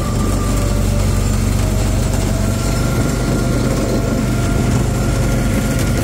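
Go-kart engine running steadily as the kart drives along, a loud, even low drone.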